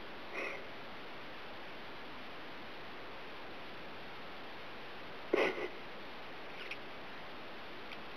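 Two short puffs of breath, sniff-like, about five seconds apart, the second louder, over a steady low hiss, with a couple of faint clicks near the end.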